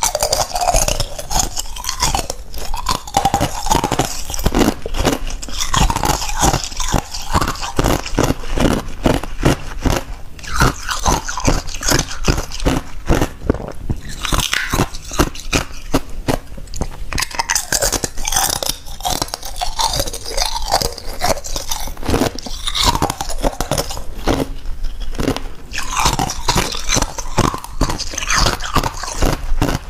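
Thin ice shells being bitten, crunched and chewed close to a clip-on microphone: a steady run of sharp cracks.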